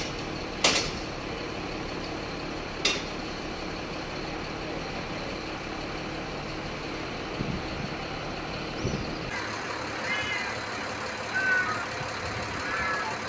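Fire truck engine running steadily while its aerial ladder is in use, with two sharp clanks in the first three seconds. About nine seconds in the sound changes to a lighter background with a few short chirps.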